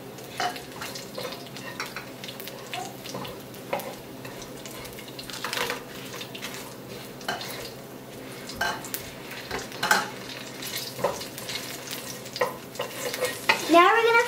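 Wooden spatula scraping and tapping irregularly against a non-stick wok while stirring cumin seeds, chopped garlic, chilies and curry leaves frying in hot oil, with a steady sizzle underneath.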